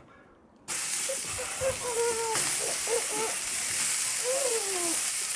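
80-20 ground beef balls sizzling as they are set down on a hot, oiled Blackstone steel griddle running on high. The sizzle starts suddenly just under a second in and holds steady.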